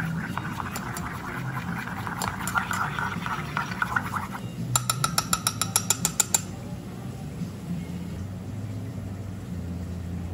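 A long bar spoon stirring an espresso shot in a small stainless steel pitcher: the spoon scrapes against the metal for about four seconds, then knocks against the pitcher's side in a quick run of ringing clinks for under two seconds. A low steady hum runs underneath.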